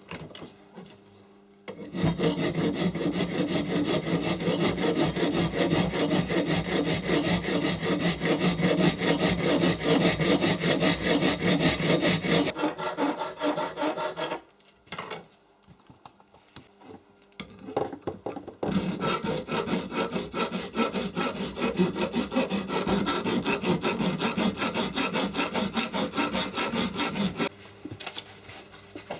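Sanding: rapid, continuous abrasive rubbing in two long spells of about ten and nine seconds, with a short break between them.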